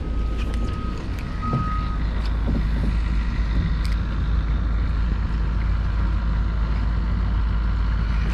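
A vehicle's reversing alarm beeping, one steady pitch pulsing about once a second, that stops about two seconds in, over a steady low rumble. A single sharp click comes about four seconds in.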